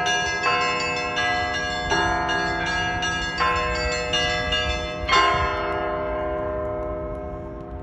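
Russian Orthodox church bells ringing, several bells of different pitches struck together in a repeating pattern. A last strong strike comes about five seconds in, after which the striking stops and the ringing fades away.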